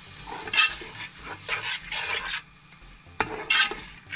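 A spatula stirring and scraping sweetcorn kernels and masala around a frying pan, mixing in the salt, in uneven strokes with a short lull a little past the middle.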